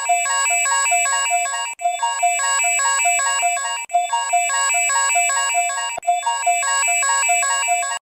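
Electronic alarm tone in the style of an emergency alert: a quick phrase of stepped, beeping tones, looping about every two seconds with a brief break between repeats.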